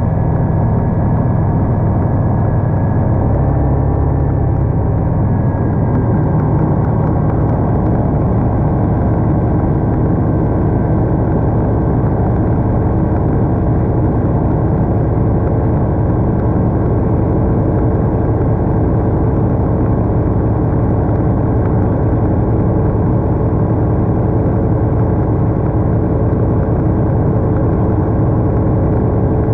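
Single-engine light aircraft's piston engine and propeller running with a steady drone, heard from inside the cockpit.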